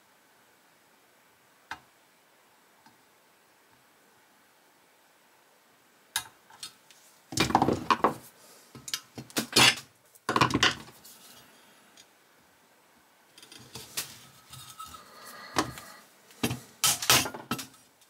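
Metal hand tools and a diecast model car body clinking and knocking together as they are handled. A single click comes first, then a run of clatter starts about six seconds in and a second run follows from about thirteen seconds on.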